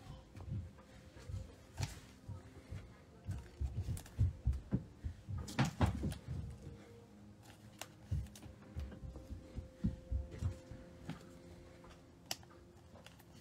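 Trading cards handled on a tabletop: cards and small stacks set down and squared with irregular soft thumps and clicks, busiest in the middle.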